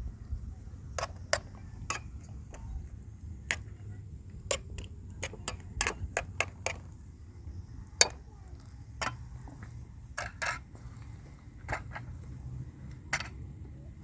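A series of irregular light clicks and knocks, some in quick pairs, over a low steady rumble.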